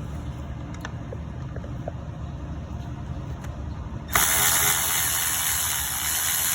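Small air ratchet running in a burst of about three seconds, starting abruptly about four seconds in, driving an 8 mm engine-cover bolt. A few light tool clicks come before it, over a steady low rumble.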